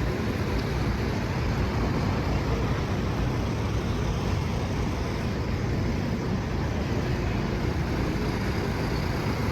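Steady road traffic noise on a busy city street: a continuous rumble of passing vehicles with no single standout event.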